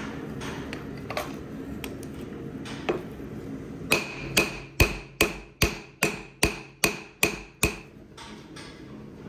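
Blacksmith's hand hammer striking a red-hot steel knife blank, forged from an old bearing, on an anvil. About four seconds in comes a run of about ten ringing blows, roughly two and a half a second.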